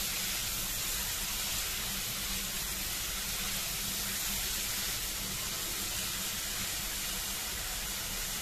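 Marinated chicken pieces sizzling steadily in butter and oil in a kadhai over a high flame, an even hiss throughout.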